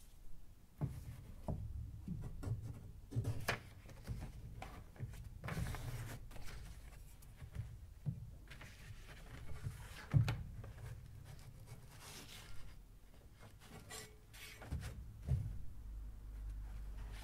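Irregular handling noise: scattered light knocks and clicks with a brief rustle, as cardboard photo mounts and a handheld camera are moved about over a table, over a low rumble.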